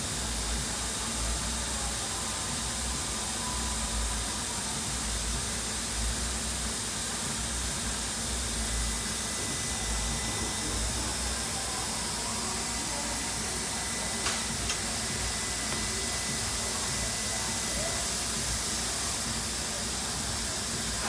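MultiCam MG series CNC router running, with a steady airy hiss and a thin high whine from the spindle and dust-collection air. Two short clicks come a little past the middle.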